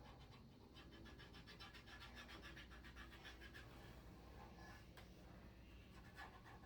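Faint scratching of a marker colouring a plastic toy gun in quick back-and-forth strokes, several a second, easing off about halfway through.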